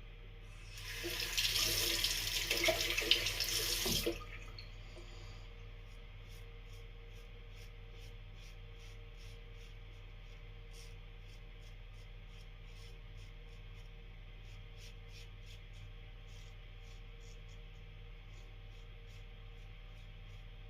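A tap runs into a sink for about three seconds and is shut off suddenly. Light, regular ticking follows over a faint steady hum.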